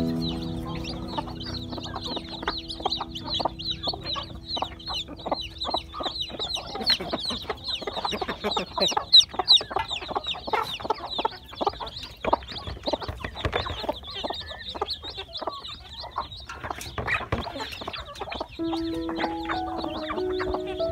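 A brood of domestic chicken chicks peeping constantly, a dense stream of short, high, falling chirps, with hens clucking and sharp pecking taps as the birds feed.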